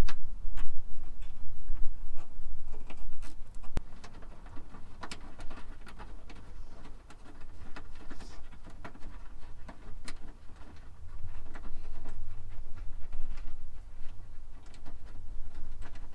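Irregular small metallic clicks and taps of a ground cable terminal and its bolt being handled and threaded by hand on a truck's body ground point, over a steady low rumble.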